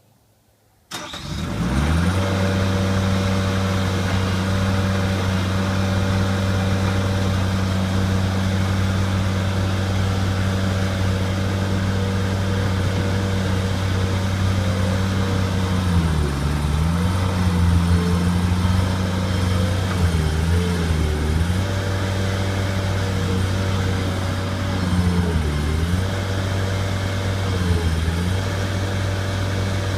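Bobcat skid steer engine starting about a second in, then running steadily at high speed. In the second half its speed dips briefly several times as it takes load, pulling the chain tight on the tree.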